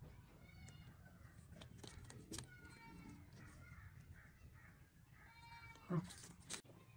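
Plastic toy train track sections clicking and knocking as they are handled and fitted together, with the sharpest click about six seconds in. Several faint animal calls sound in the background.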